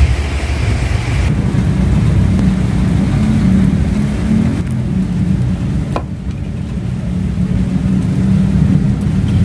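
Steady low rumble of wind buffeting the phone's microphone, over the hiss of rain, with a single faint click about six seconds in.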